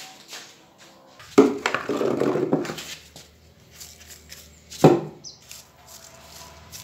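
Dry leaves and husk mulch rustling and scraping as a hand sweeps them off the soil surface of a potted fruit tree: a burst lasting about a second and a half, then one sharp crunch.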